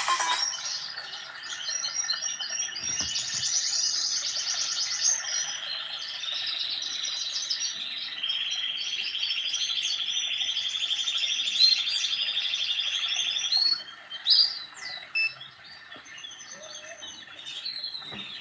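Mobile phone ringtone of recorded birdsong: rapid chirps and trills, with a long, even trill through the middle, thinning to scattered chirps over the last few seconds.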